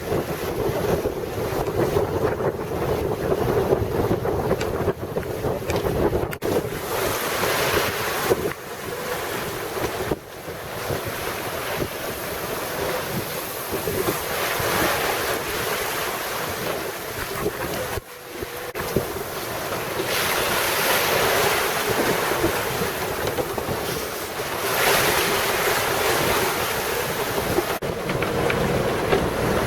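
Wind buffeting the microphone and waves rushing along a small sailboat under sail in a swell, the noise swelling and easing every few seconds.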